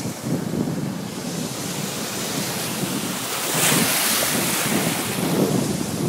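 Ocean surf washing in over the sand, with wind buffeting the microphone. A wave swishes in, loudest a little past the middle.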